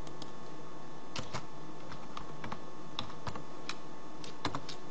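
Computer keyboard keys clicking as a word is typed: about a dozen short, irregularly spaced keystrokes over a steady background hiss and hum.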